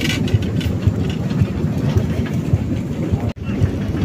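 Motorized rail trolley (molek) running along the track, its engine and steel wheels clattering on the rails in a steady loud rumble with irregular small knocks. The sound cuts out for an instant a little past three seconds in.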